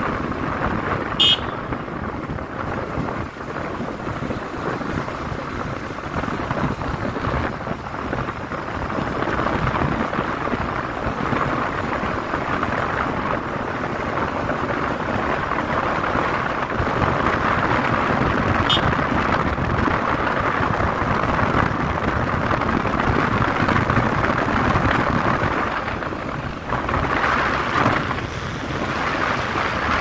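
Steady wind and road noise from a moving vehicle, with two brief high ticks, one about a second in and one near the middle.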